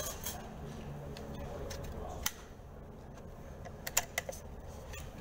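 Small metallic clicks and clacks from a Squires Bingham .22LR rifle as its detachable box magazine is seated and the action is handled. A quick run of clicks comes about four seconds in, over a steady low hum.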